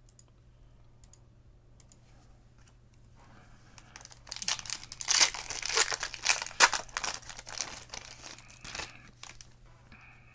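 A foil football-card pack torn open by hand, its wrapper crinkling. There is faint handling at first; the tearing and crinkling start about four seconds in and die away near the end.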